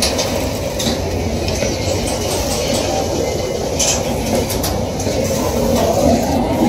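Freight train hopper wagons rolling past close by: a steady rumble of steel wheels on rail, with a few sharp clacks as the wheels cross rail joints.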